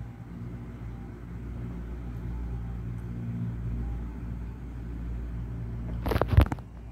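Storm wind and rain buffeting a high-rise window during a typhoon's landfall: a steady low rumble with a faint hum. A short burst of loud knocks comes about six seconds in.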